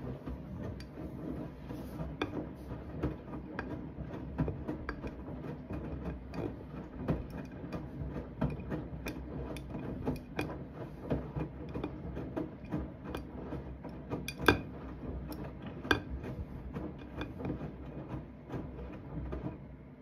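Siemens front-loading washing machine in its wash phase, the drum turning with a steady low rumble while the wet, sudsy load tumbles and sloshes. Irregular clicks and knocks run throughout, the loudest two about fourteen and a half and sixteen seconds in.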